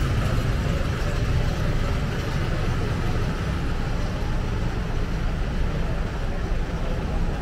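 Busy town street ambience: a steady low rumble with a faint murmur of voices.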